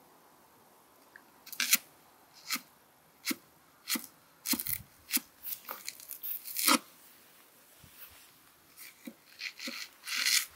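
A large knife slicing through a red onion on a wooden chopping block: about twenty crisp, crunching cuts at an irregular pace, each with a light knock of the blade on the wood, starting about a second and a half in.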